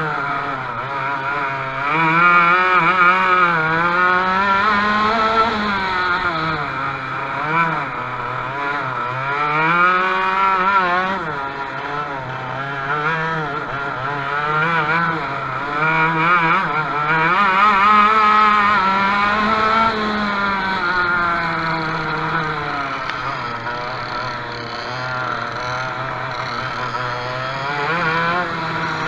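Racing kart engine heard from on board, running hard with its pitch rising and falling again and again as the kart accelerates out of corners and backs off into them.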